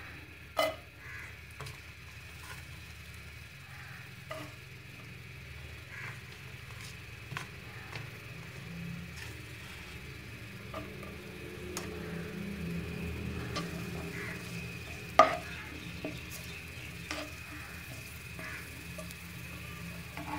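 Chopped onions frying in oil in a non-stick wok, sizzling steadily while a slotted spatula stirs and scrapes them, with scattered light knocks of the spatula on the pan and one sharper knock about fifteen seconds in.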